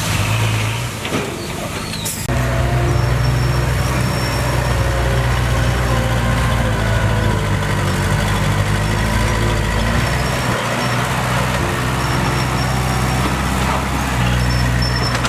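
Heavy diesel engine of earth-moving equipment running steadily under work, its note changing abruptly about two seconds in.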